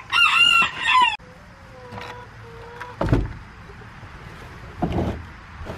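A loud, high poultry call lasting about a second, then two heavy footsteps on the coop's wooden ramp, a couple of seconds apart.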